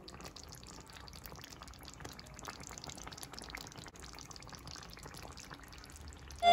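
Chicken curry simmering in a pan: quiet, irregular bubbling and small pops of sauce and oil.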